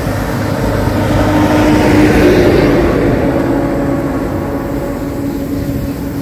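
A motor vehicle's engine passing on the road, with a steady hum that swells about two seconds in and then fades.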